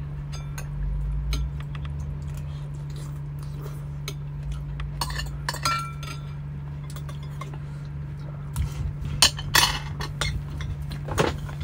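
Forks and spoons clinking and scraping against ceramic plates and a bowl during a meal, in scattered taps with the loudest few near the end, over a steady low hum.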